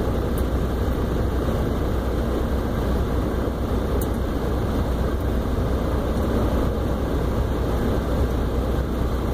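Semi truck's diesel engine running slowly, a steady low rumble inside the cab.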